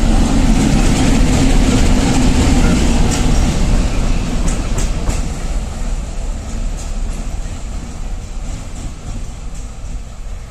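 ChME3 diesel shunting locomotive running light past at close range: its diesel engine running and its wheels clicking over the rail joints, loud as it passes and fading away over the last few seconds.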